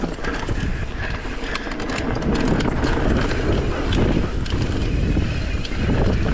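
Mountain bike ridden fast on a dirt trail: a steady rumble of the tyres on dirt, with frequent clicks and rattles of the bike over bumps, getting louder about two seconds in.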